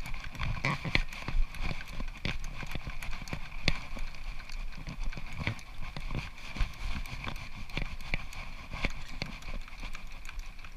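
Metal lathe running with a steady whine while its tool bit faces the end of an aluminium blank, with irregular clicks and ticks all through the cut.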